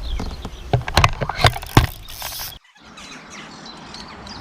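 Irregular clicks and knocks of a fishing rod and reel being handled straight after an electronic bite alarm goes off. About two and a half seconds in, the sound cuts out abruptly, leaving faint bird chirps.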